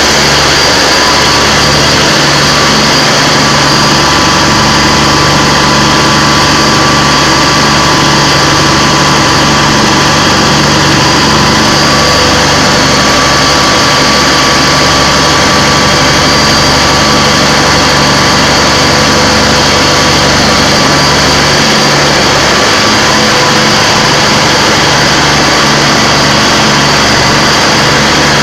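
An engine running steadily and loudly at an unchanging speed, on test.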